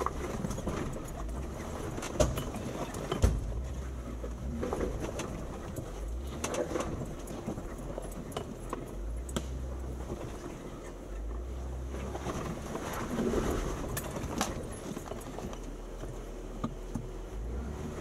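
Jeep Wrangler Rubicon crawling slowly over a rough off-road trail: a low engine rumble that swells and eases, with irregular knocks and clunks from the tyres and suspension on rock. The two sharpest knocks come about 2 and 3 seconds in.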